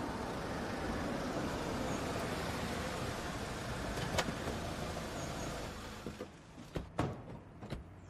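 A car driving in slowly, a steady engine and tyre rumble that dies away about six seconds in, followed by several short clicks and knocks of a car door being opened.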